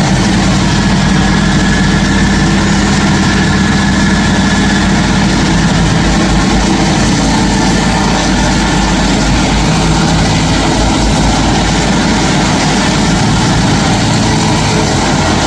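Stump grinder running, its engine loud and steady.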